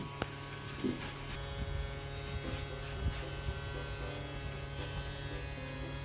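Hetty toy vacuum cleaner's small battery motor running with a steady electric hum, with a few light knocks as the nozzle is pushed over the carpet.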